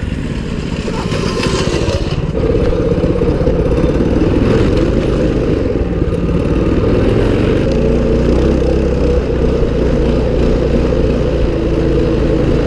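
Mini bike engine running under throttle as the bike rides a dirt trail. It picks up about two seconds in and then holds a steady pitch.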